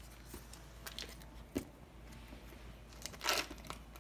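Foil wrapper on a block of cream cheese being peeled open and crinkled. Scattered small crackles, with a louder crinkle about three seconds in.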